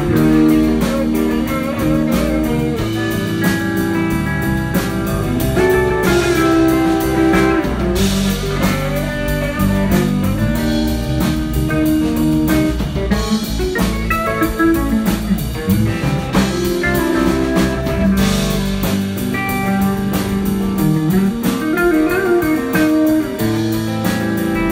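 Blues-rock music with electric guitar over a drum kit beat.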